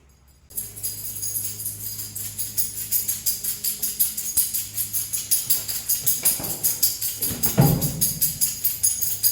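Background music with a quick, steady percussive beat over low sustained tones, starting abruptly about half a second in.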